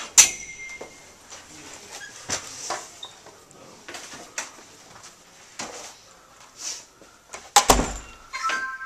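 A door clicking open, then scattered clicks and knocks of movement and handling in a small office, ending with a heavy thump as a pile of padded mail envelopes lands on a counter.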